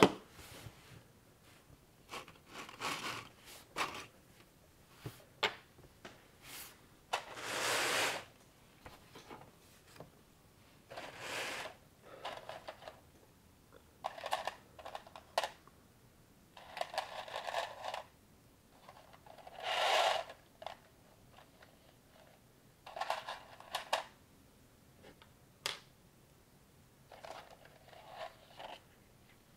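Knock-off LEGO Technic-style plastic building pieces being handled and pressed together: scattered sharp plastic clicks and small knocks, with a few noisier scrapes of about a second each. The loudest click comes right at the start.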